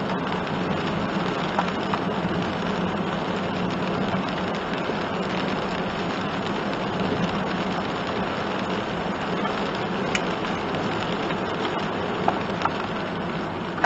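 Steady tyre and rain noise heard inside a kei one-box van driving on a wet road in the rain, over a low steady drone. A few light ticks sound near the start and toward the end.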